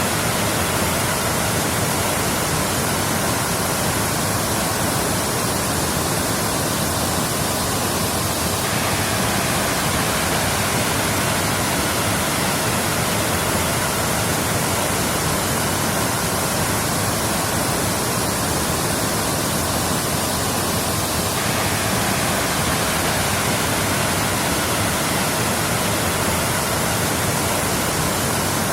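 Waterfall: steady, unbroken rushing of falling water.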